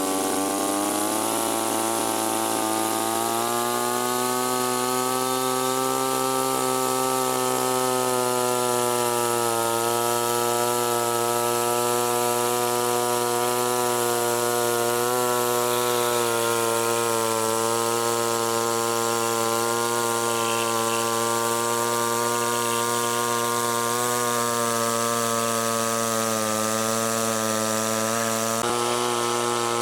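Chainsaw running steadily at high revs, cutting into a fallen tree trunk. Its pitch rises slightly over the first few seconds, then holds even.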